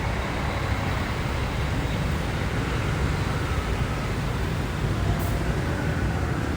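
Steady rumble of road traffic, with no clear single event standing out.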